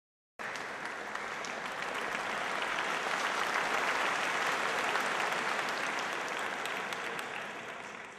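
Audience applauding, building over the first few seconds and fading away near the end.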